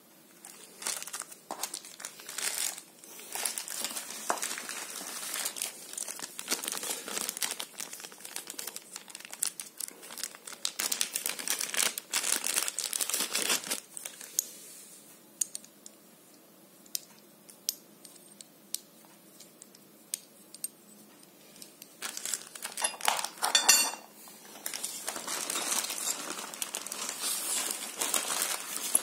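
Small plastic hardware bags crinkling as the handguard parts and bagged bolts are handled, in two long stretches with a quieter pause between. Scattered small clicks throughout, and one sharp metallic clink about two-thirds of the way through.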